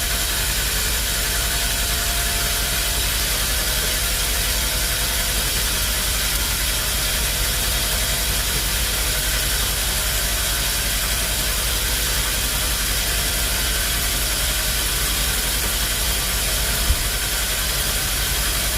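Sawmill machinery running steadily: an even engine-like drone with a hiss on top, and one short sharp click about seventeen seconds in.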